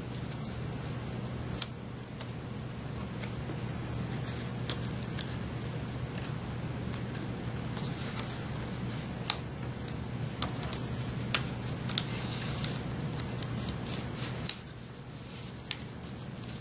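Corrugated cardboard being handled and pressed down by hand as a glued wall strip is fitted to a cardboard tile: light scrapes and rustles with scattered sharp clicks, over a steady low hum.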